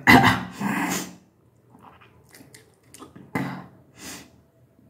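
A person retching over a basin, deliberately bringing up undigested food: a loud, drawn-out heave in the first second, then two shorter retches about three and four seconds in.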